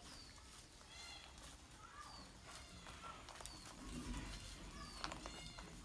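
Baby monkey giving short, high-pitched squeaking calls, roughly one a second.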